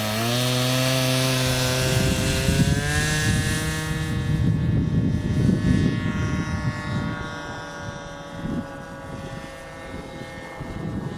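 Radio-controlled model airplane's motor and propeller spooling up to full power for takeoff, the pitch rising over the first couple of seconds, then holding a steady drone that slowly sinks in pitch and fades as the plane flies off. A gusty low rumble runs underneath for most of it.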